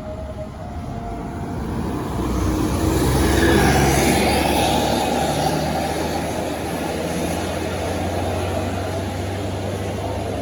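A large bus driving past on the road. Its engine and tyre noise build over the first few seconds and are loudest about four seconds in, then a steady low engine hum carries on.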